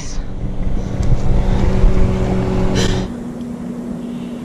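A boat motor running steadily with a low hum, a sharp click about three seconds in, then a quieter steady hum.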